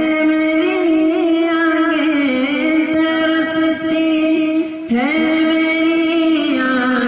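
A group of young men singing together into microphones, holding long drawn-out notes with small wavers in pitch. About five seconds in, a new phrase begins with an upward slide into the note.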